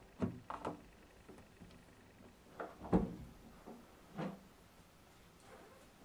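A small plastic slide bolt on a door being drawn back, a few sharp clicks in quick succession. Then come two heavier thuds: the loudest about three seconds in, and another about a second later.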